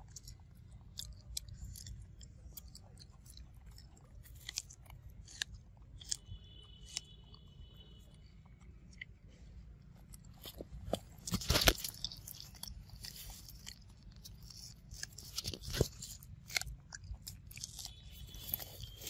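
A macaque biting and chewing a piece of corn on the cob close up: a run of small wet crunches, with louder crunches about halfway through and again a few seconds later.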